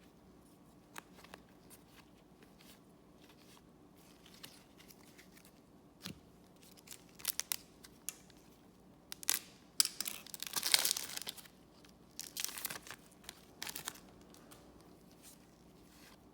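Garbage Pail Kids trading card pack wrapper being torn open and crinkled, in a few short spells, the loudest about ten seconds in, with scattered light clicks and taps before it.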